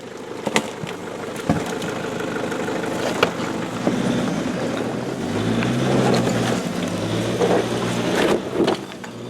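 A four-wheel drive's engine running under load while crawling up a rocky climb, revving higher about halfway through. A few sharp knocks come through early on.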